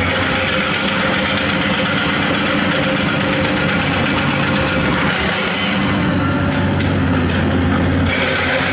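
Komatsu PC200 hydraulic excavators' diesel engines running steadily as the machines dig into limestone, a continuous heavy engine drone with a dense noisy layer on top that eases a little near the end.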